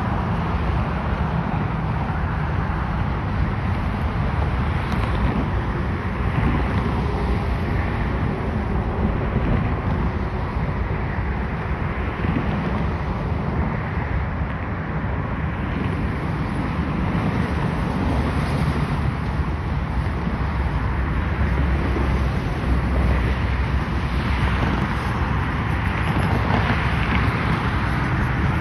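Steady road traffic noise with wind buffeting the microphone, a continuous low rumble and hiss.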